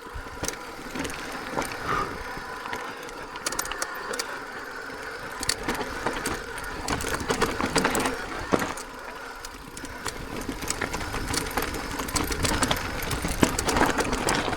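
Mountain bike disc brakes held on hard and dragging with a steady, angry grinding squeal, while the bike clatters and rattles over rocks.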